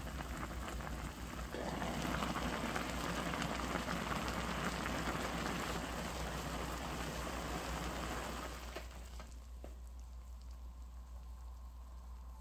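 Ramen broth boiling hard in an aluminium pot on a portable gas burner, a dense crackling, bubbling hiss as the liquid is boiled down. The noise drops off sharply about nine seconds in, with a faint click.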